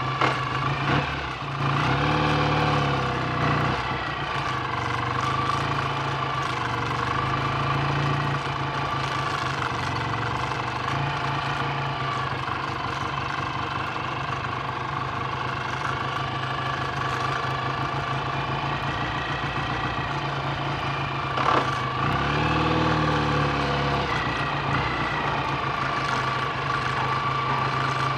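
BSA A65 Thunderbolt's 650 cc parallel-twin engine idling steadily in slow traffic, with two brief rises and falls in engine speed, about two seconds in and again about 22 seconds in, as it pulls forward.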